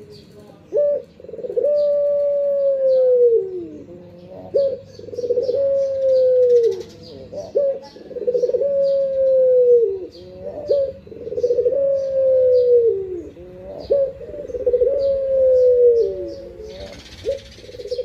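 A Barbary dove (burung puter) cooing in five repeated phrases, one about every three seconds. Each phrase is a short note followed by a long, drawn-out coo that slides down in pitch at its end.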